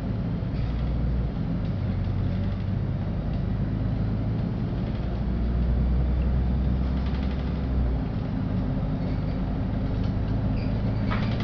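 LiAZ-5292 city bus in motion, heard from inside the cabin: a steady low engine drone with road noise. The deepest note drops away about eight seconds in, and there is a brief rattle near the end.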